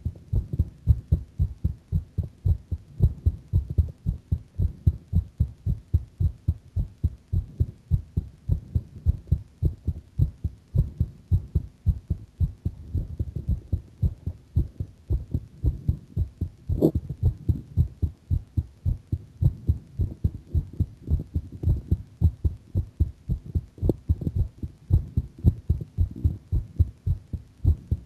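A woman's heartbeat, a fast, even run of low thudding beats, beating a bit faster than at rest. A single short knock sounds about two-thirds of the way through.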